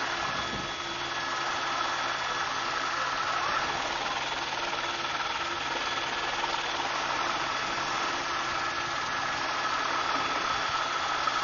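Helicopter in flight: a steady drone of engine and rotor with a steady whine above it.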